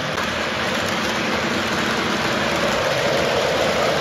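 Three-rail model train running on tubular track: a steady rolling rumble of wheels on the rails, growing a little louder near the end as a passenger car passes close.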